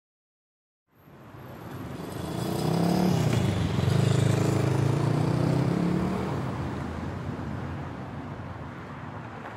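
City street traffic fading in, with a motor vehicle's engine rising and falling in pitch as it passes, loudest in the middle and then dying away.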